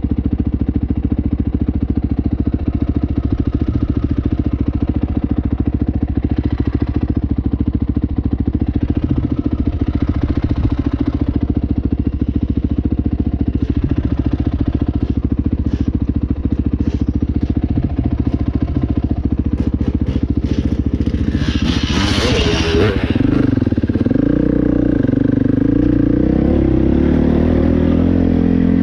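Dirt bike engine running steadily under way. About two-thirds of the way through there is a brief loud rush of noise, after which the engine note steps up and down as the throttle and gears change.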